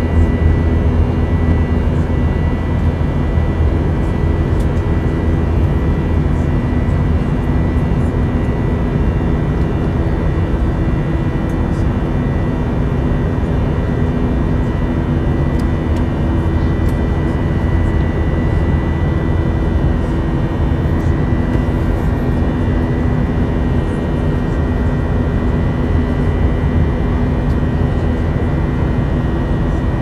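Steady cabin drone of a jet airliner in flight, engine and airflow noise, with a faint steady whine over it.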